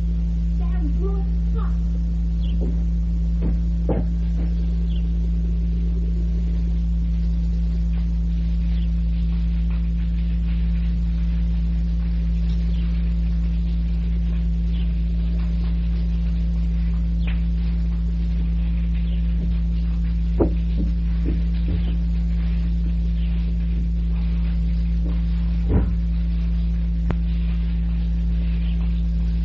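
Steady electrical mains hum on an old cassette tape recording, with a few faint short knocks: one a few seconds in and a couple more in the latter half.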